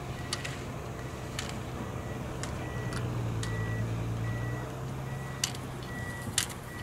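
Slalom gate poles knocked aside by a skier, sharp clicks roughly once a second that grow louder as the skier comes nearer. Under them a steady low hum runs, with a faint evenly pulsing high beep.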